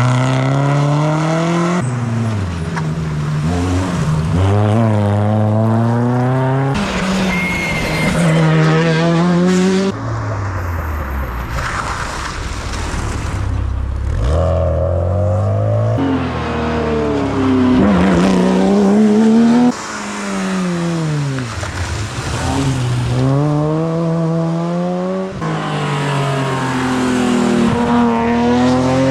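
Rally car engines driven hard through a stage, several passes in succession. The pitch climbs and drops back again and again as the cars accelerate through the gears, lift off and brake for corners, with some tyre squeal.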